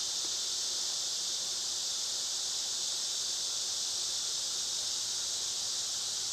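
Steady, unbroken high-pitched buzzing of a katydid chorus.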